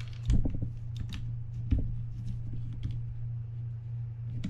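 Scattered clicks and light knocks of metal reel parts being handled as the drag lever is fitted back onto a Shimano TLD25 reel, over a steady low hum.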